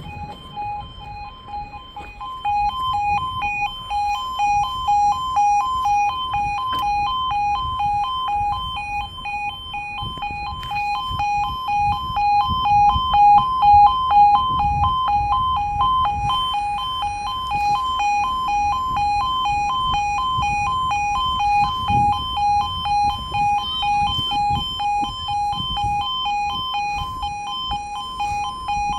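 Railway level crossing warning alarm sounding continuously with the barriers down: the rapid two-tone yodel, alternating quickly between two pitches.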